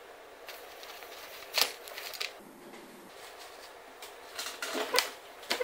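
Handling noises: a few sharp clicks and short rustles as small drill-motor parts and multimeter test leads are picked up and set down, the loudest near the end.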